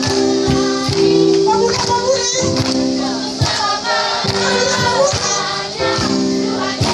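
Congregation singing a worship song together, many voices of adults and children, over held keyboard chords and an amplified electric guitar, with a steady percussive beat.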